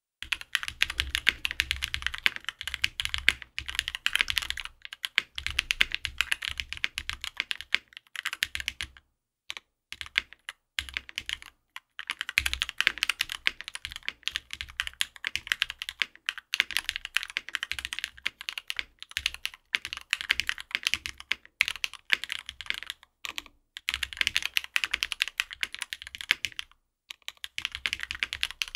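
Typing on a Monokei x TGR Tomo custom mechanical keyboard with lubed and filmed Zaku switches in an aluminium plate, GMK keycaps and no foam: fast, continuous keystrokes. A few brief pauses break the typing, with a sparser stretch of single key presses around the middle.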